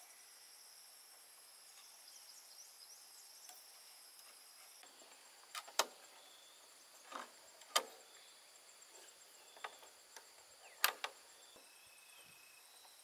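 Sharp knocks of a knife blade striking and chopping into bamboo, about eight strikes in the second half, some in quick pairs. Steady high insect trilling underneath.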